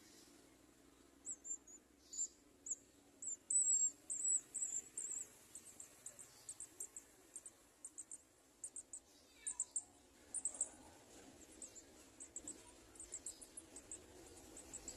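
Garden sunbirds giving a long series of high, thin chirps at the nest, densest in a rapid run a few seconds in, then scattered.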